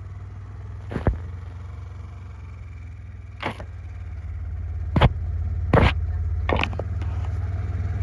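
Vehicle engine running with a steady low drone that grows somewhat louder in the second half, with about five short knocks or clatters scattered through it.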